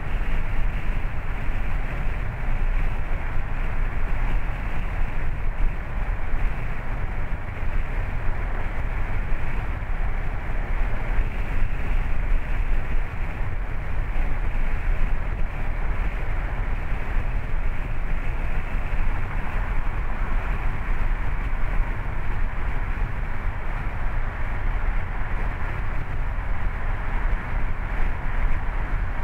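Steady road noise of a car driving along a city street: tyre rumble and wind on the moving car, a continuous low rumble with a hiss above it.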